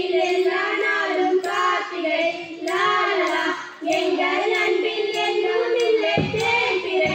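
Girls singing a Tamil villupattu (bow song) verse, holding long, drawn-out notes. A short low thud comes near the end.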